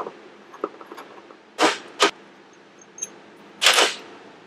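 Cylinder-head bolts and the aluminium head of a KTM 300 XC-W two-stroke cylinder being handled on a steel bench tray. There are small metal ticks, then two sharp clinks about a second and a half in, and a short scrape near the end as the head comes off.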